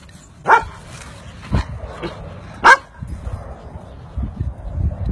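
A dog barking: three sharp barks about a second apart.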